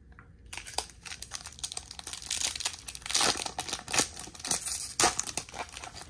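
Foil wrapper of a Topps baseball card hobby pack crinkling and tearing as it is ripped open and the cards are slid out, starting about half a second in and loudest in the middle.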